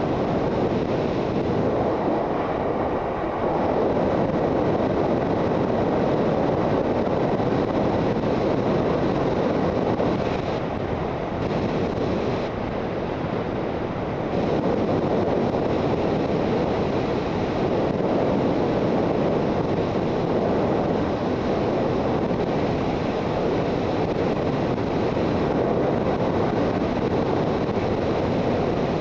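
Suzuki GSX650F motorcycle riding at road speed: steady wind rush on the microphone mixed with engine and road noise.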